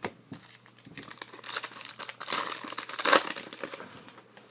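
Foil wrapper of a trading-card pack crinkling and tearing as it is handled, in a dense run of crackles after a sharp click at the start, loudest about three seconds in.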